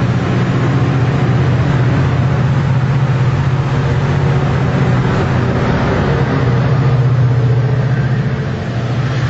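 Metrolink bilevel passenger cars rolling past at close range as the train pulls out: a steady, loud rumble with a low hum underneath. The cab car at the rear passes near the end.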